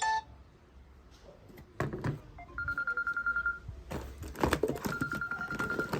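Electronic phone ringtone: a high trilled tone about a second long, heard twice in the second half, mixed with knocks and clatter.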